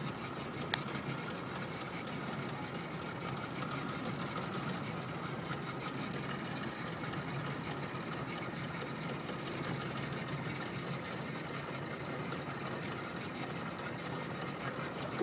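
Motorboat engine running steadily at low throttle, the boat moving slowly in gear just off plane. A single short click about a second in.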